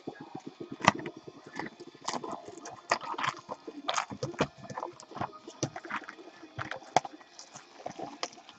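Clear plastic shrink wrap being torn and crumpled off a cardboard box of trading cards: a long run of irregular crackles and snaps.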